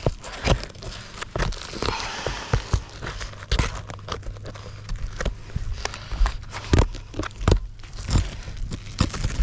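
Irregular knocks, taps and crinkling scrapes of roof shingles, nails and tools being handled on a roof.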